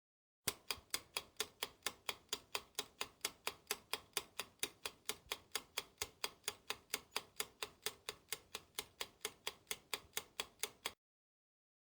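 Clock-ticking sound effect: sharp, even ticks about four a second, starting and stopping abruptly.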